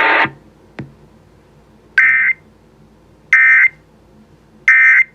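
Emergency Alert System end-of-message data burst: three identical short bursts of screechy digital warbling, evenly spaced about a second and a bit apart, marking the end of the weather warning. A small click comes just before them.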